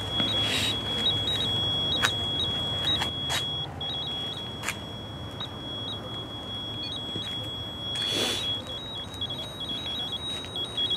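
High-pitched electronic alarm tone from a ghost-hunting trigger device, sounding almost without pause with short breaks and slight jumps in pitch. The device keeps going off with no apparent cause. Scattered clicks and short rustles sound over it.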